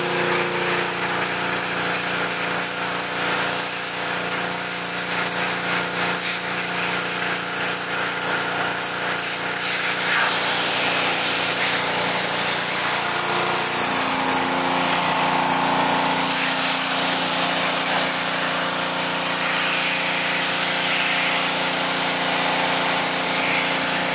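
Small gas-engine pressure washer running steadily, with the hiss of its high-pressure water spray hitting a car's windshield and rubber trim.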